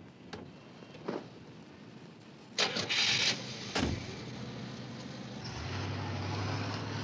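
A car door clatters and is slammed shut a little under four seconds in, then the taxi's engine runs with a steady low hum as the car pulls away.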